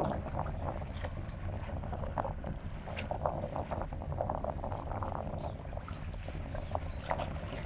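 Seaside fishing-village ambience: a steady low rumble with many small knocks and clatters, and a few short high bird chirps about two-thirds of the way in.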